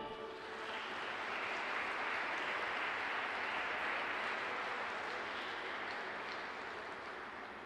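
Audience applauding in an ice rink, the clapping building over the first second, holding, and slowly fading toward the end.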